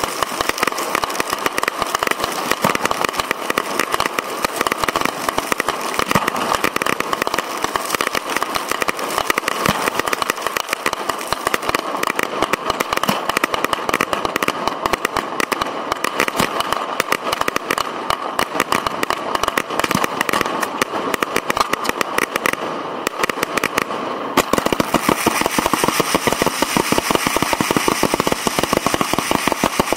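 Fireworks firing at close range from the launch racks: a dense, unbroken rattle of tubes firing and crackling shells bursting overhead. About two-thirds of the way through it gets louder as a volley of spark-shooting effects fires from the rack just in front.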